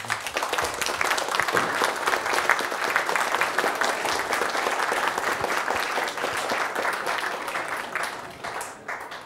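Audience applauding: many hands clapping in a dense patter that thins out and fades over the last second or so.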